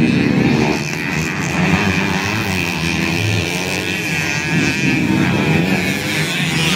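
Several standard underbone motorcycles racing on a dirt track, their engines revving up and down and overlapping.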